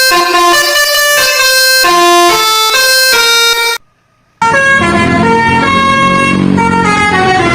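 Bus telolet basuri horn playing a melody of held notes that step up and down in pitch. It cuts off suddenly about four seconds in. After half a second of silence another horn melody starts over the low rumble of a running bus engine.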